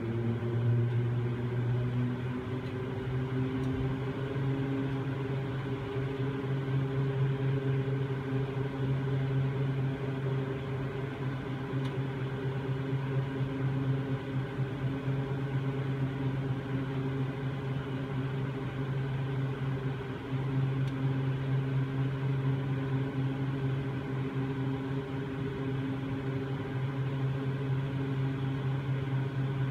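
Aerial ropeway machinery and haul cable running with a steady, many-toned hum; its higher tones rise slightly over the first few seconds, then hold steady.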